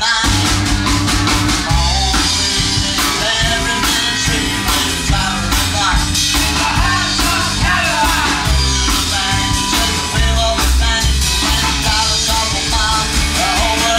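Rockabilly-style rock and roll band music with a steady driving beat; a new passage kicks in right at the start.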